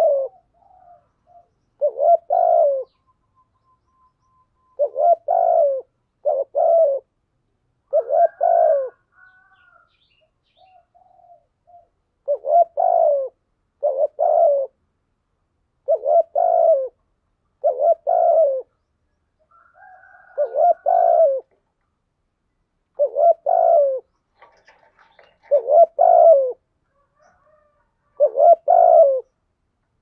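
Spotted dove cooing in short, low, repeated coos, often in pairs, about every two to three seconds. This is the urging 'thúc gù' cooing of a decoy dove, used to provoke wild doves into answering.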